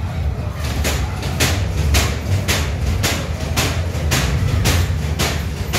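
Horror house ride car running along its track: a steady low rumble with a sharp, even clack about twice a second.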